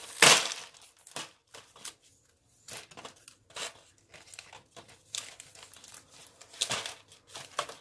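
A clear plastic compartment storage box of bracelet beads being handled and rummaged through: irregular plastic clicks, knocks and crinkling, loudest just after the start.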